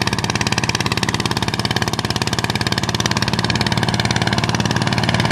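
Small petrol engine of a DW 150 RXI walk-behind tiller running steadily at an even speed with a fast, regular firing beat, driving its rotary tilling cutters.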